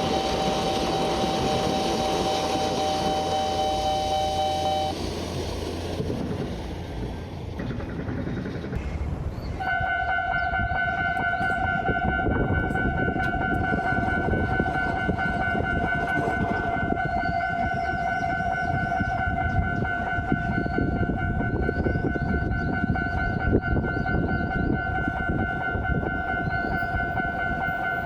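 Japanese railway level-crossing warning alarm ringing steadily over the noise of a passing train. About nine seconds in it gives way to another crossing's alarm at a different pitch, which keeps ringing to the end.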